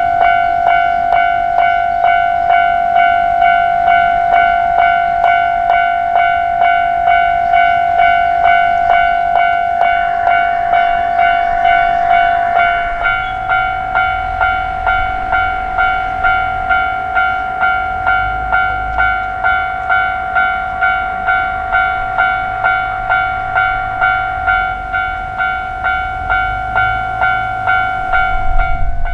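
Japanese level-crossing alarm ringing its electronic bell, a steady repeated 'kan-kan' at about three rings every two seconds, starting abruptly at the outset. From about halfway a low rumble of a train rises beneath it.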